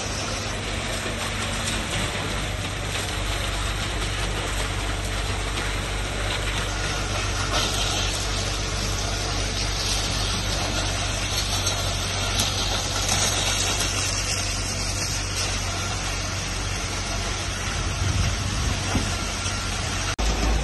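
Concrete pump truck's engine running steadily under load while wet concrete is pumped through the hose and discharged onto the slab, a constant hum with a hissing, gushing wash.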